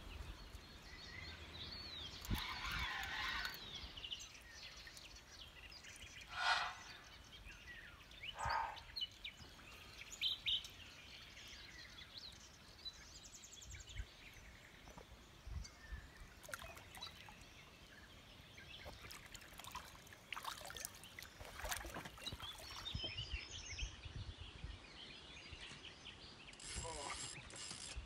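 Outdoor ambience with birds calling, broken by scattered short knocks and rustles.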